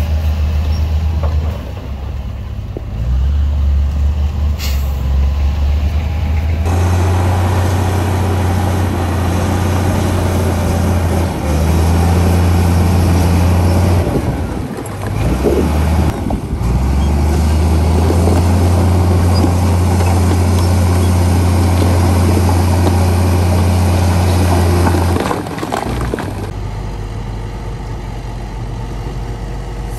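Heavy diesel engines of earthmoving machines running: a deep, loud drone that shifts in pitch and level several times as the machines work. It breaks briefly about halfway through.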